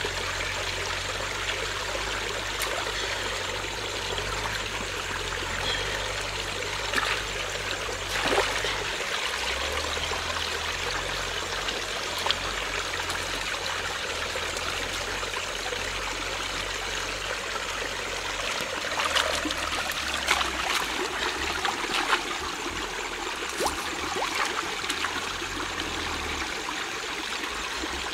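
Shallow stream running over rocks, with a few brief splashes from hands and a duck carcass being rinsed in the water.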